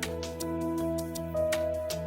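Soft background music: sustained held notes over a light, regular beat.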